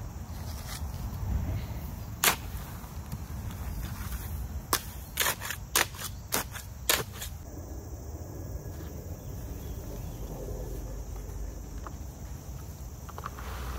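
Metal tines of a long-handled garden cultivator striking and scraping through soil mixed with gravel and perlite. It makes a string of sharp clicks, bunched together between about four and seven seconds in, over a low rustle.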